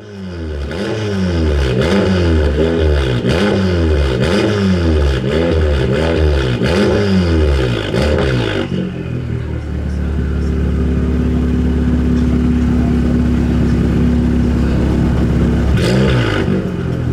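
Exhaust of a wide-fendered Volkswagen Golf GTI's turbocharged four-cylinder engine, revved repeatedly at a standstill, rising and falling about once a second. After about nine seconds it settles to a steady idle, with one more short blip near the end.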